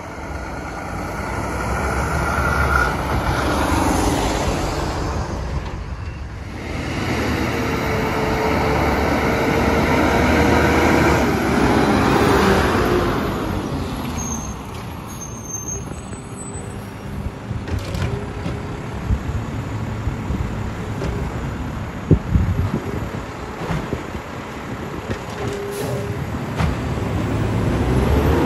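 Heavy diesel trucks driving past at close range: a dump truck goes by, then a refuse truck pulls past and drives off. The engine noise swells and fades as each passes.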